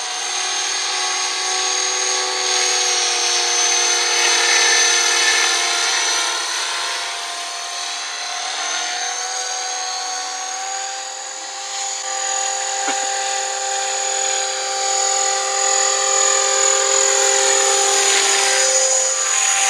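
Electric RC helicopter (T-Rex 500 mechanics in a scale Huey UH-1 fuselage) in flight: a steady high whine from the motor, gears and rotor. It eases off slightly around the middle, and some of the tones shift in pitch near the end as the helicopter changes its flight.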